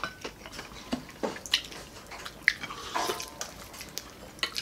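Several people eating close to the microphone: wet chewing and lip smacks with scattered short clicks.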